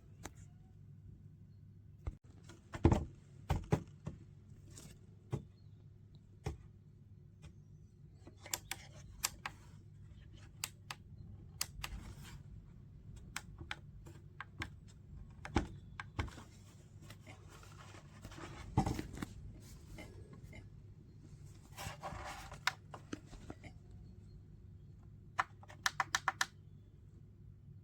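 Handling noise in a small room: scattered clicks, taps and knocks with brief rustles, and a quick run of about six clicks near the end, over a steady low hum.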